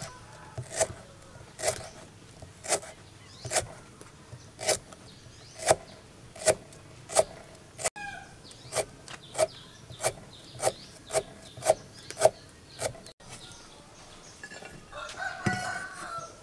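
A large kitchen knife slicing through lemongrass stalks and knocking on a wooden chopping board, a cut about every second, seventeen or so in a row before stopping. Near the end a chicken calls once in the background.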